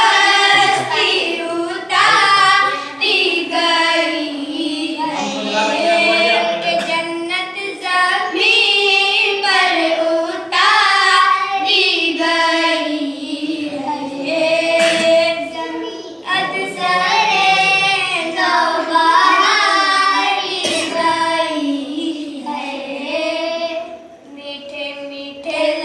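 Children singing a naat, an Urdu devotional song in praise of the Prophet, in a flowing melody with held, ornamented notes.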